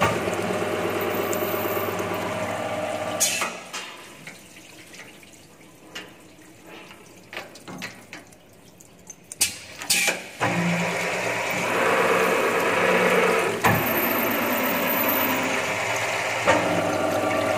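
Multi-head tapping machine running, its spindle motor humming under the hiss of coolant spraying onto the taps. A few seconds in it stops; scattered clicks and knocks follow as a workpiece is changed by hand, and about ten seconds in the machine starts running again.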